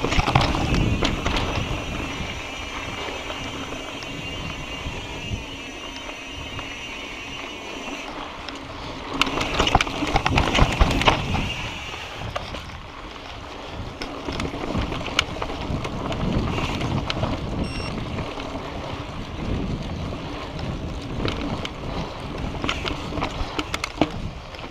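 Mountain bike ridden along a dirt and rock singletrack: tyres rolling over sand and stones, the bike rattling and knocking over bumps, with wind rumbling on the camera microphone. The rattling gets louder over rougher ground about nine to twelve seconds in.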